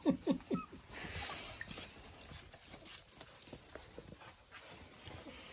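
Puppies give a quick run of four or five short whining yelps at the start, then soft scuffling and scratching as they tussle on a doormat.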